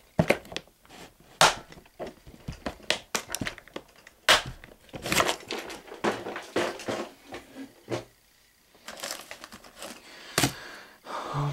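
Clear plastic tackle box being handled: the lid shut, latches clicked and the box lifted away, giving a run of plastic clicks, knocks and rustles. There is a short lull about eight seconds in, then one sharp click.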